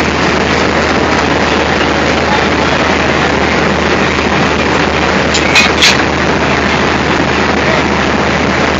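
Diesel locomotive engine idling close by, a loud steady rumble. Two sharp metal clinks come about five and a half seconds in.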